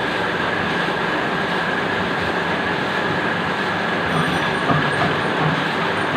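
QZ201 cutting machine running: a steady mechanical noise with a constant high whine, and a few soft low knocks about four to five seconds in.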